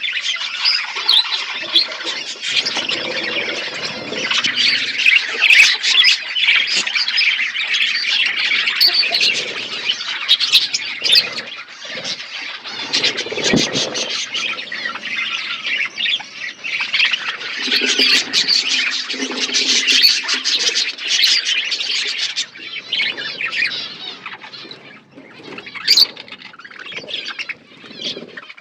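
A flock of budgerigars chattering with dense, overlapping chirps and squawks, with one loud, sharp call near the end.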